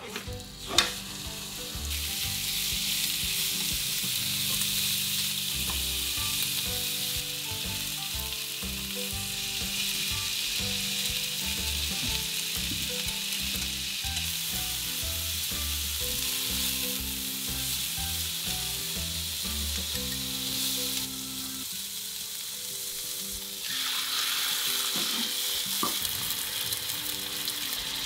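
Sliced pork, then sliced vegetables, frying in sesame oil in a frying pan: a steady sizzle that starts about two seconds in, drops off for a few seconds near the end and comes back. A single sharp clack about a second in.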